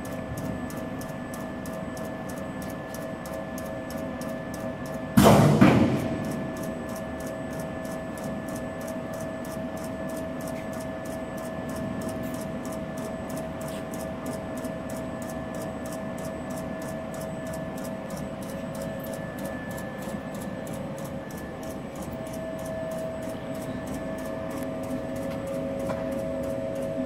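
CNC turret punch press running with a steady hum carrying a couple of steady tones, with a faint ticking about three times a second. One loud sudden burst comes about five seconds in and dies away within half a second.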